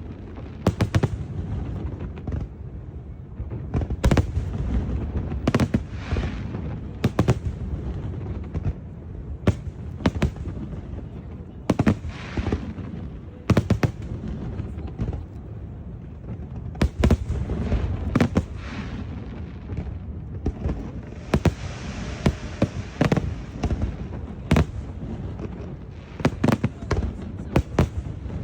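Aerial fireworks display: shells bursting in irregular succession with sharp bangs over a steady low rumble, and a stretch of hissing crackle about two thirds of the way through.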